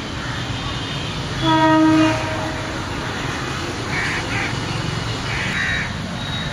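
A single short, steady horn blast from a passing road vehicle, with background traffic hum. Two harsh crow caws follow later.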